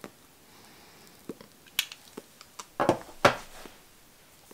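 A tobacco pipe being lit and puffed. The lighter's flame hisses faintly at first, then come a run of soft puffs and lip pops from drawing on the pipe. Two louder puffs of breath follow about three seconds in, the second trailing off as smoke is blown out.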